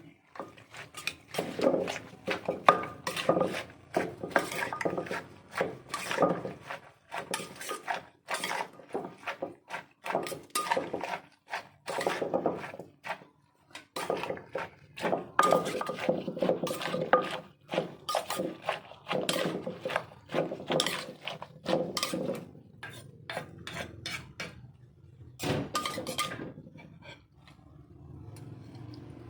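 Irregular knocks and clinks of kitchen utensils against a resonant vessel, typical of a pestle pounding som tam in a mortar, with a few short pauses between runs of strokes.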